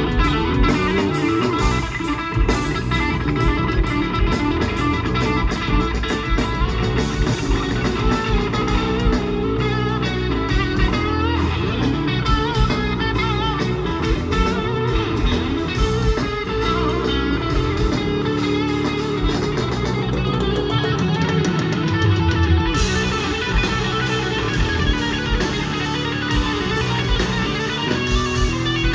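Live rock trio playing loudly: electric guitar over bass guitar and drums.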